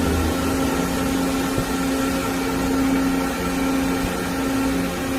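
Doosan DCM-2740F double column CNC machining center running: a steady machine hum with several constant tones over a bed of noise.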